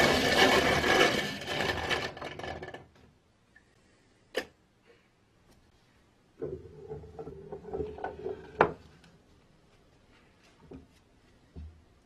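Peugeot Brothers A1 hand-cranked coffee grinder grinding coffee beans, the grinding dying away over the first three seconds. A few seconds later its wooden drawer slides out with a rubbing scrape that ends in a sharp knock.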